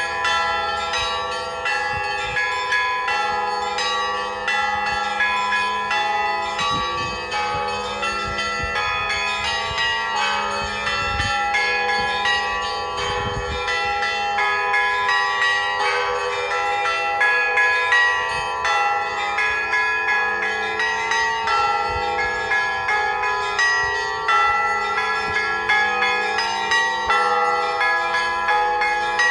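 Russian church bells ringing the noon peal: several bells struck in quick succession, their tones overlapping and ringing on continuously.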